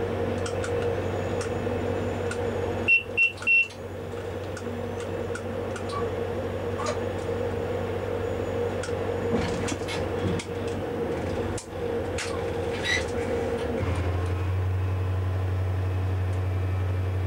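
Diesel engine of a DSB MK shunting locomotive running steadily, heard from inside the cab, with scattered light clicks. Three short high beeps sound close together about three seconds in, and the engine note changes about fourteen seconds in.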